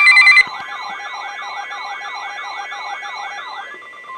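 Emergency weather-radio alert tone: a loud steady tone for about half a second, then a fast warbling siren-like alert, about three sweeps a second, over a steady high tone, stopping near the end. It marks the start of a new warning broadcast.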